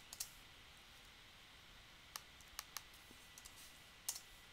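Quiet, scattered clicks of a computer mouse and keyboard: a few single clicks spread over the seconds, the loudest about four seconds in.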